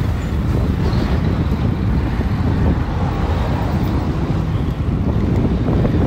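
Wind buffeting the microphone of a camera on a moving bicycle at about 15 mph: a loud, steady low rumble.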